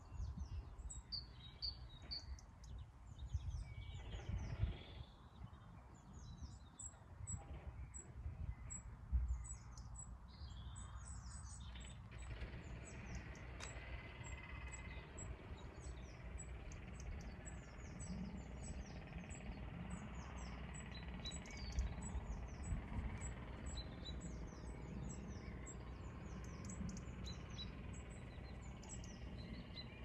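Small birds chirping and singing: many short, high, downward-sweeping notes repeat throughout, over a low rumble that swells a few times in the first ten seconds.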